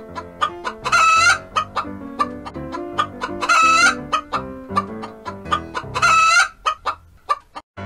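Chicken sound effect: quick short clucks with three longer drawn-out calls about two and a half seconds apart, over light background music.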